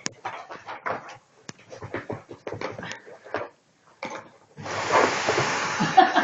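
Short, irregular knocks, clicks and scrapes of a pit bull tussling with a vacuum cleaner. About four and a half seconds in, a steady rushing noise starts suddenly, typical of the vacuum cleaner's motor switching on.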